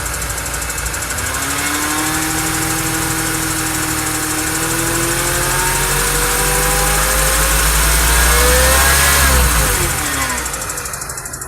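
2011 Mini One's engine revving slowly up and then falling back quickly near the end, with a steady ticking underneath that keeps its own pace whatever the engine speed. It is an intermittent tick that the owner is struggling to get diagnosed.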